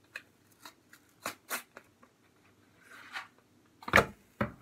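Cardboard tuna package being handled: scattered light clicks and rustles. Near the end come two sharp knocks about half a second apart.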